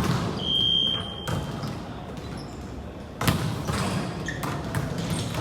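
Volleyball game in a gym: a steady high whistle blast lasting about a second near the start, typical of a referee's whistle, then a sharp ball strike about three seconds in, with other thuds of the ball and hall echo.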